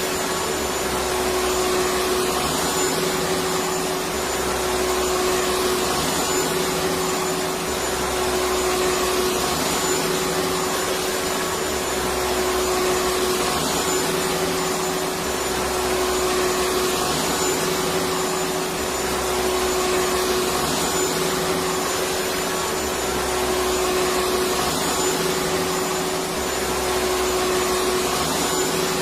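Electric vacuum cleaner running continuously: a steady motor whine and airflow hiss with a constant pitch, and a low hum that swells and fades slightly every few seconds.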